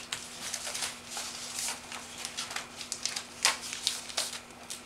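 Unboxed accessories and packaging being handled: scattered light rustles and clicks, with a sharper click about three and a half seconds in.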